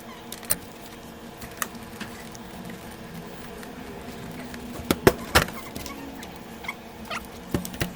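Tools and parts clicking and knocking on an electronics repair bench over a steady hum. There are scattered light taps and a couple of louder knocks about five seconds in.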